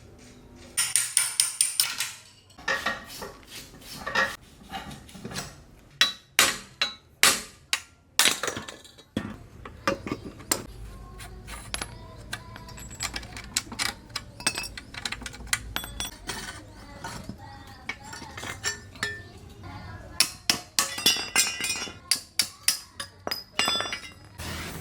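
Metal tools and bicycle parts clinking and knocking together in a workshop. There is a quick run of sharp clinks just after a second in, scattered knocks after that, and another dense run of clinks near the end.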